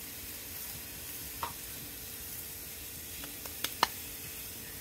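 Hamburger patty sizzling steadily in a hot cast-iron skillet, with three short sharp clicks, two of them close together near the end.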